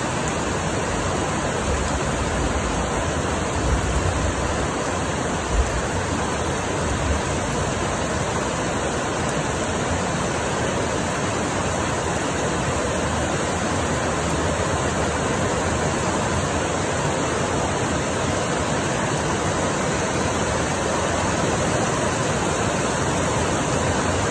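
Steady rain falling, a dense even hiss. A few short low bumps come about four to six seconds in.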